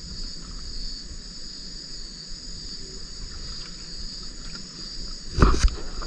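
Steady night chorus of crickets and other insects, a high, even trill. Near the end, two loud thumps come close together.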